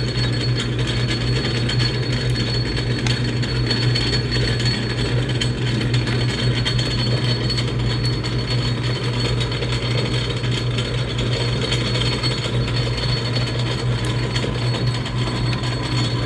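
Atlas metal lathe running at its lowest spindle speed with the power feed engaged in reverse: a steady low hum of the motor and gear train with a thin high whine, unchanging throughout.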